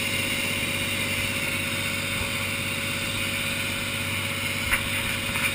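Cessna light aircraft's piston engine and propeller running at a steady drone. A brief click near the end.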